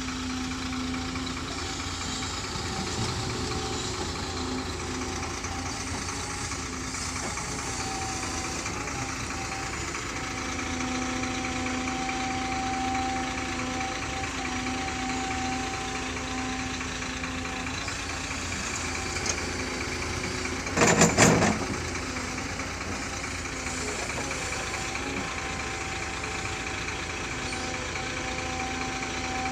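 An engine or motor running steadily with a constant hum, broken by a short, louder burst of sound about two-thirds of the way through.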